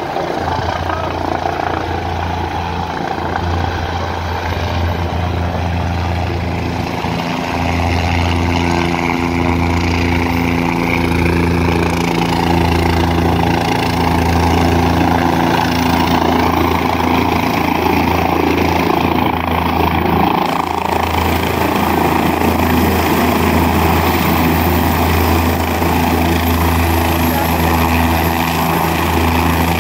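Light helicopter coming in to land, its rotor and turbine running with a low steady pulse and a few steady tones above it. It grows louder about a quarter of the way through as it comes down onto the pad, then holds steady while it sits there with the rotor still turning.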